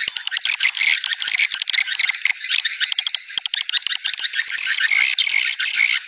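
Swiftlet lure call: a dense, fast chattering and twittering of swiftlets, made up of rapid buzzy chirps and clicks. Short clear whistled notes recur about every half second in the first two seconds. It is a dusk lure sound of the kind played at swiftlet houses to draw swiftlets in to roost.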